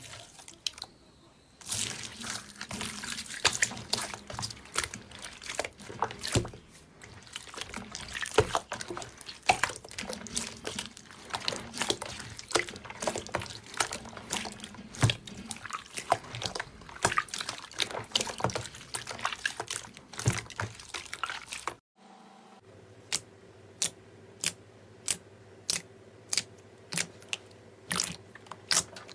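Slime being squeezed and worked by hand, making dense, irregular wet clicking and popping. After a sudden cut about two-thirds through, separate sharp clicks come roughly once a second over a low steady hum.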